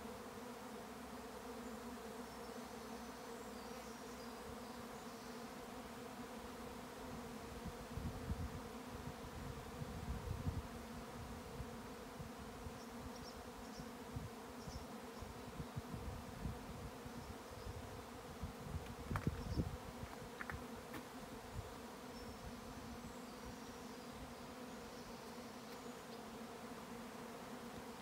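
Honeybee swarm in flight overhead: a steady, dense hum from thousands of bees on the wing, the sound of a colony swarming. A few low buffets on the microphone come and go, around eight to eleven seconds in and again near twenty seconds.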